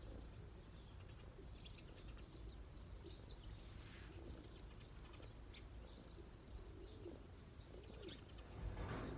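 Faint outdoor ambience of small birds chirping and a pigeon cooing, with a brief rustle near the end.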